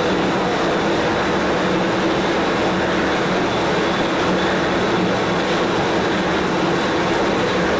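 Heavy-duty all-geared lathe running steadily: an even mechanical hum from the motor and headstock gearing, with a few steady whining tones.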